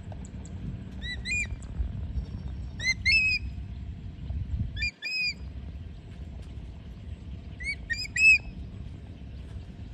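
A hawk-eagle calling shrilly in four short bursts, each of two or three quick notes that rise and fall in pitch, over a low steady rumble.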